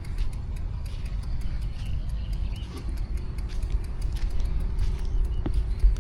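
Street ambience from a moving bicycle: a steady low rumble of wind and road noise under city motor traffic, with many light clicks and rattles throughout and one short sharp sound near the end.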